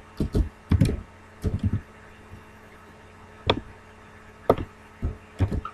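Keystrokes on a computer keyboard and mouse clicks: a quick run of key taps in the first couple of seconds, then single clicks about a second apart, over a faint steady electrical hum.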